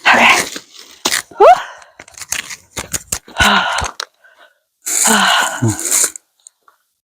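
Several loud, breathy bursts of a person's voice without words, spaced a second or two apart, with a quick rising squeak about a second and a half in and the longest burst near the end.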